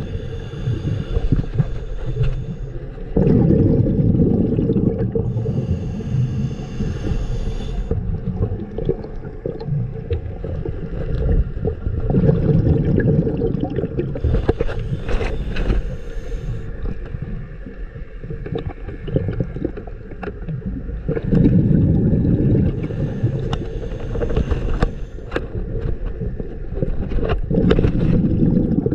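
Muffled underwater rumble and gurgling of a scuba diver's exhaled bubbles, swelling every several seconds.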